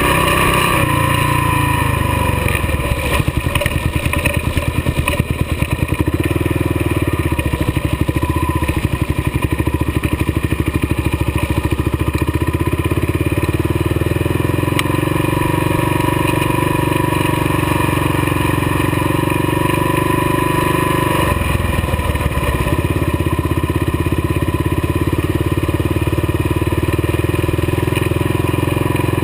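Kawasaki KLR dual-sport motorcycle's single-cylinder four-stroke engine running steadily while riding a dirt track, heard from on the bike.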